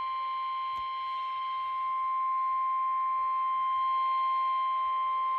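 Emergency Alert System attention signal for a severe thunderstorm warning: one steady, high electronic alert tone held without a break.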